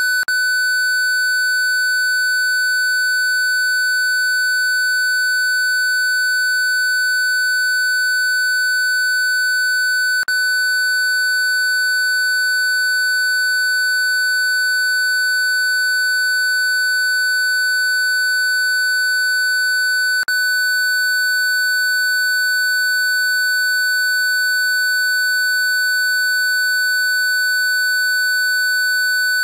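A steady electronic 1500 Hz sine tone, held at one pitch. It briefly drops out with a click about every ten seconds: near the start, about ten seconds in and about twenty seconds in.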